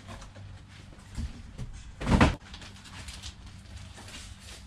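Items being handled and put down: a loud thump about two seconds in, with a couple of lighter knocks before it and faint rustling.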